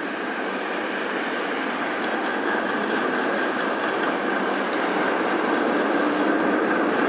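A PCC streetcar running toward the listener on street rails, a steady rumble of wheels and running gear with a thin steady whine in it, slowly growing louder. Passing street traffic is mixed in.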